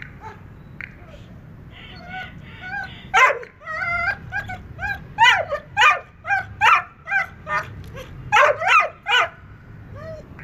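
A dog whining and yipping in quick, short, high cries that bend up and down, broken by sharper, louder yelps about three seconds in and again between about five and nine seconds in.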